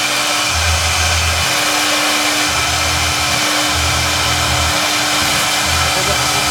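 Large CNC foam router running: a loud, steady rushing noise with a constant mid-pitched tone, and a low hum that starts and stops several times.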